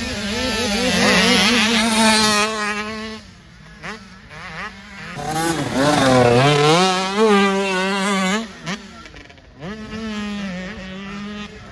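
Mini motocross bike engines revving up and falling off with throttle and gear changes on a dirt track, loudest as one bike passes close about halfway through.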